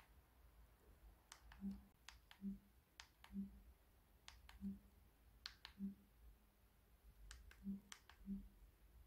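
Faint, irregular clicks of TV remote buttons as a smart-TV menu is scrolled, with a soft low blip about every second from about a second and a half in.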